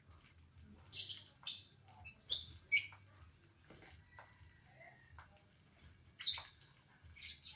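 Lovebird giving short, sharp, high-pitched chirps, about six of them spaced irregularly, the loudest about six seconds in.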